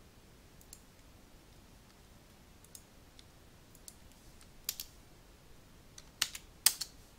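Scattered clicks of a computer mouse and keyboard: a few faint ones, then two louder clicks about halfway through and a quick cluster of louder clicks near the end.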